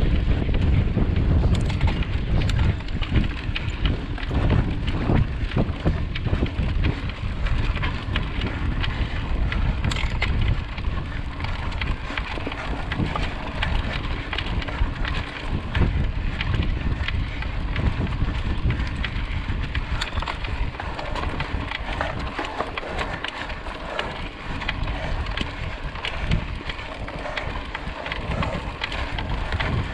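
Wind buffeting the microphone of a camera riding along on a mountain bike, over the rolling noise of the tyres on the trail, with many small rattles and knocks as the bike goes over bumps.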